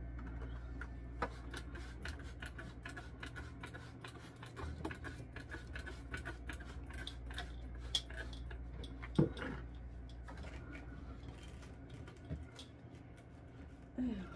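Scattered small clicks, taps and rustles of items being handled while a refrigerator is cleaned out, with the phone rubbing against clothing. One louder knock comes about nine seconds in, over a low steady hum.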